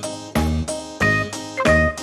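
Background music with a steady beat and a light melody of short pitched notes.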